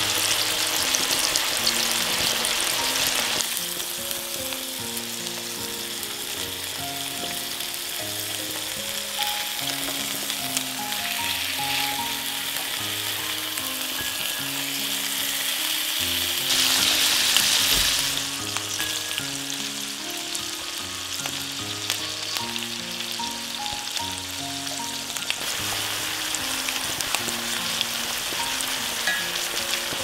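Chicken breasts sizzling in oil in a cast iron skillet, a steady frying hiss that swells briefly about 17 seconds in as the pieces are turned with wooden tongs. Soft background music plays underneath.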